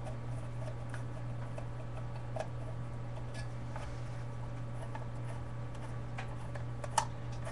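Faint small clicks and ticks of self-tapping screws and a hand tool being worked as the screws are driven into an aluminium magazine adapter plate, with one sharper click about seven seconds in. A steady low hum runs underneath.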